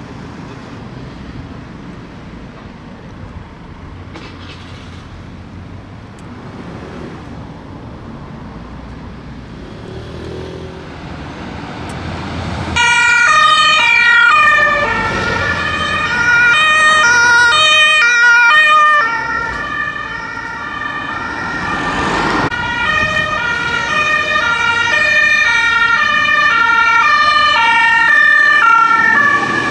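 A steady background rumble, then about twelve seconds in an ambulance's two-tone siren comes in loud, alternating between a high and a low pitch. It eases off briefly and a second two-tone siren builds up again as the next ambulance approaches.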